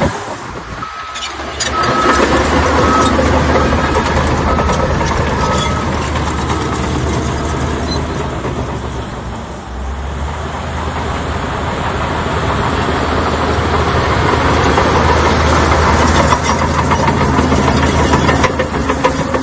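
Crawler bulldozer's diesel engine running steadily, with scattered metallic clanks. A reversing alarm beeps about once a second for the first six seconds or so.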